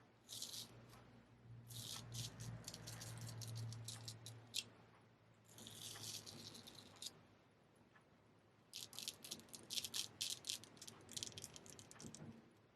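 Straight razor scraping through stubble in quick short strokes: a fast run of strokes, a longer rasp, then another quick run.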